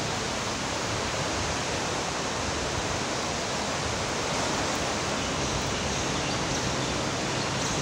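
Floodwater flowing, a steady even rushing hiss.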